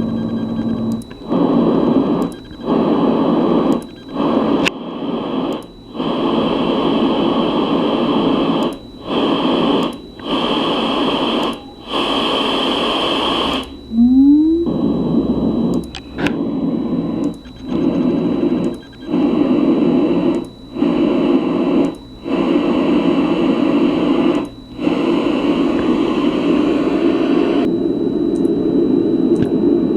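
LectroFan white noise machine switching from one of its fan and noise sounds to the next: a steady hiss that breaks off for an instant about every one to two seconds and resumes with a different tone. A short rising chirp about halfway through.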